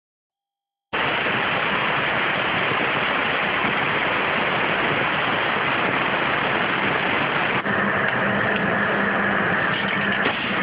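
CNC waterjet cutter's high-pressure water jet hissing steadily as it cuts stainless steel sheet; it starts about a second in, and a steady hum joins it a little past two thirds of the way through.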